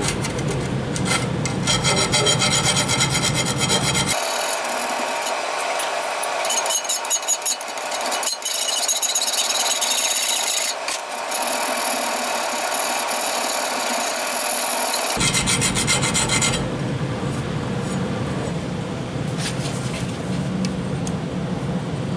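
Steel saw-blade stock being worked with tools: continuous, fairly loud scraping noise that changes character abruptly about four seconds in and again about fifteen seconds in.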